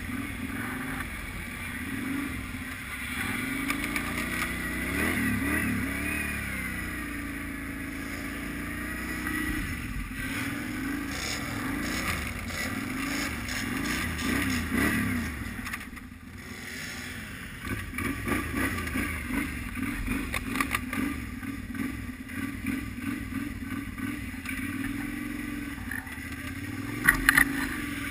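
ATV engine revving up and down again and again as the quad is driven and slid around on snow, its pitch rising and falling with each throttle change. A couple of sharp knocks stand out near the end.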